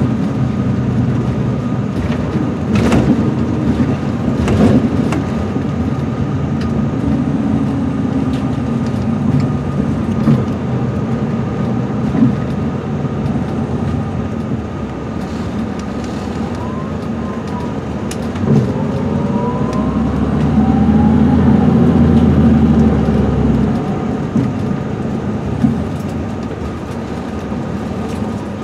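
Cabin noise of an MCI D4500CL coach under way: its Cummins ISM diesel engine and Allison automatic transmission running steadily under road noise, with a few knocks from bumps. The pitch rises for a few seconds in the middle, and then a louder low rumble swells for about four seconds.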